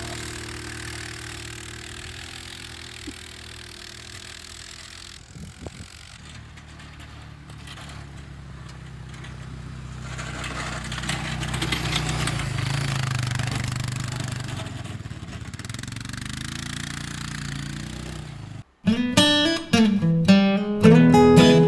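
Engine of a snow-plowing vehicle running steadily, growing louder around the middle. Near the end it cuts off abruptly to strummed acoustic guitar music.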